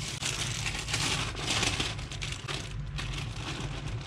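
Plastic bag crinkling and rustling as food scraps are shaken out of it onto worm bin bedding, over a steady low hum.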